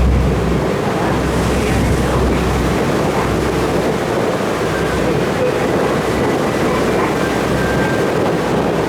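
Ferry under way: a steady engine drone mixed with rushing water and wind buffeting the microphone.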